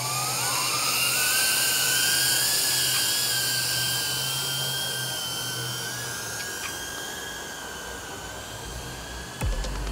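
Brushless motors of a 2.5-inch cinewhoop FPV drone whining as it lifts off. The pitch climbs through the first second, then holds as a steady high whine that slowly fades as the drone flies away. A thump and a few clicks come near the end.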